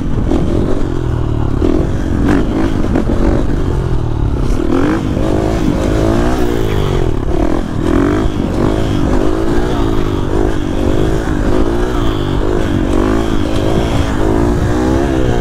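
Supermoto motorcycle engine being ridden in wheelies, the revs rising and falling over and over as the throttle is worked, settling into about one rise and fall a second after the first few seconds.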